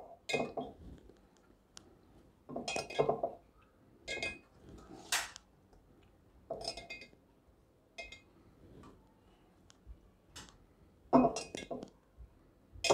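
Irregular clinks and soft knocks, some with a brief ring, as spice-stuffed gunda are set by hand into a glass pickle jar, about a dozen over the stretch.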